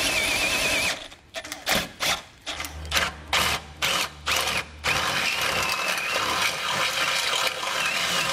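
Electric drill with a half-inch bit enlarging a bolt hole in a car's subframe: it runs steadily with a wavering whine for about a second, then comes in a string of short trigger bursts, then runs steadily again from about the middle on.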